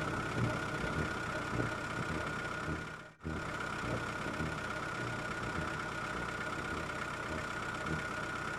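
Small motor of a homemade mini tractor running steadily with a high whine over low, uneven clattering; the sound drops out briefly about three seconds in, then resumes unchanged.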